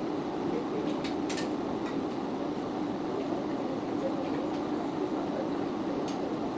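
Steady low rumbling background noise, with a few light clicks and clinks from the steel rack parts and hardware being handled during assembly, the sharpest ones coming about a second and a half in.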